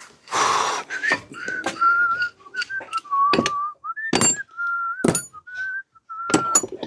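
A man whistling a tune to himself in short, wavering phrases. Several sharp clicks and knocks break in between the phrases.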